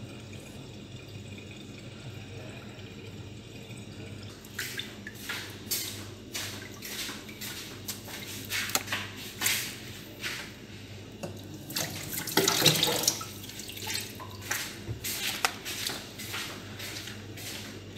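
Water splashing and dripping in a plastic tub of cleaned crabs, faint and even at first, then irregular splashes from about four seconds in, loudest a little past the middle.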